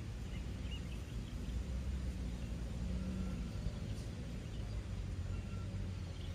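Steady low outdoor rumble with a few faint, short high chirps, like small birds, above it.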